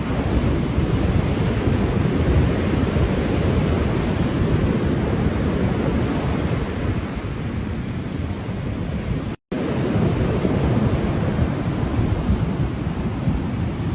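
Ocean surf washing steadily, a continuous rushing noise heaviest in the low end. It cuts out completely for an instant about two-thirds of the way through, then carries on.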